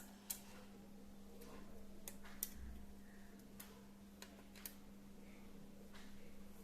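Scattered light clicks and taps, about ten over several seconds, from small laptop parts and tools being handled during reassembly. A steady low hum runs underneath.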